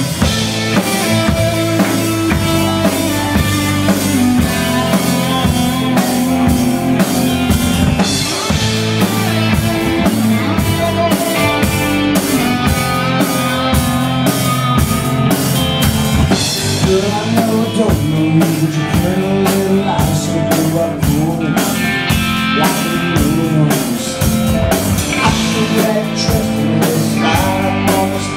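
Live country-rock band playing loud: electric guitar over a drum kit keeping a steady driving beat.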